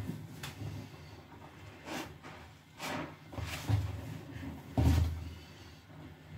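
Soaked sponges being squeezed and pressed by hand in a plastic tub of soapy water heaped with thick foam: wet squelches and sloshes at irregular intervals, the loudest about five seconds in.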